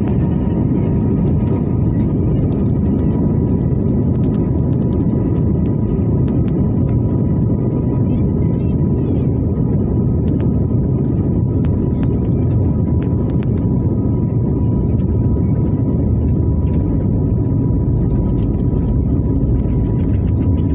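Jet airliner cabin noise while taxiing: a steady low rumble of the engines and airframe heard from inside the cabin, with a faint steady whine over it.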